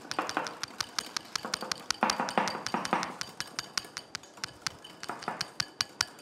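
Wire balloon whisk beating thick gram-flour batter in a glass bowl: quick, rhythmic clicks of the wires against the glass, several a second, with a wet swish of batter between strokes. This is the khaman dhokla batter being beaten right after Eno fruit salt is mixed in.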